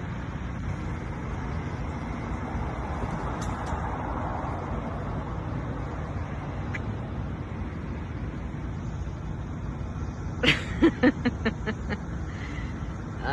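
Steady low rumble of a motor vehicle running, with a quick run of about six sharp knocks, fading one after another, about ten and a half seconds in.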